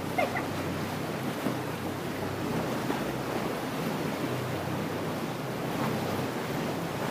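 Sea water sloshing and lapping around a small inflatable motorboat as it moves slowly into a sea cave, over the low steady hum of its outboard motor, with wind on the microphone.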